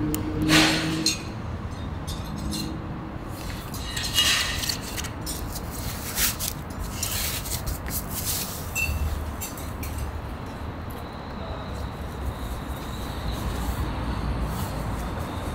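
Clear plastic zip-lock bag crinkling as it is handled, in short irregular crackles, over a steady low background rumble.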